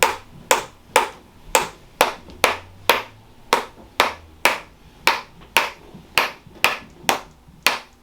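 Repeated strikes on a patient's lower back during a chiropractic treatment: sharp clicks at a steady pace of about two a second.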